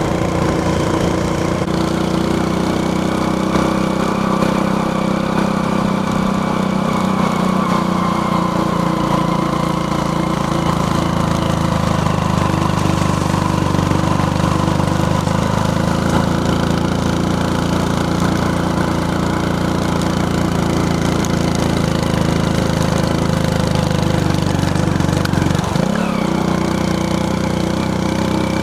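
A steady, engine-like mechanical drone that holds unchanged throughout, with a brief dip in its low end near the end.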